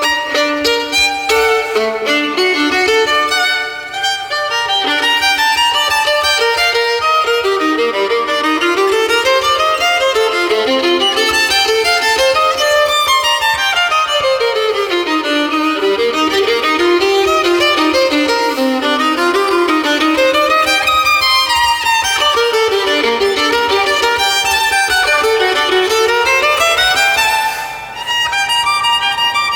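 Solo violin playing rapid runs of notes that sweep up and down its range, with brief breaks about four seconds in and near the end.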